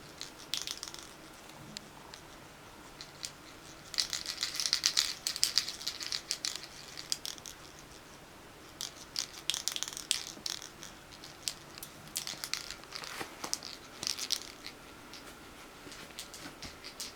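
Bursts of crinkly rustling and scratching as a kitten plays, several flurries of quick small clicks and scrapes with quiet gaps between.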